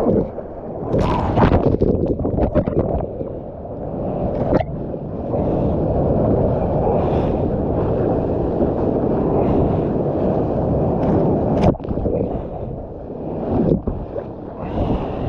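Seawater splashing and sloshing against a GoPro camera held at the water's surface, with wind on the microphone. A cluster of sharp splashes comes in the first few seconds, a few more near the end.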